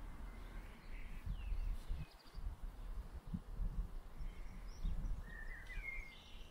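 Outdoor ambience: a low, uneven rumble with a few short, faint bird chirps, the clearest about five seconds in.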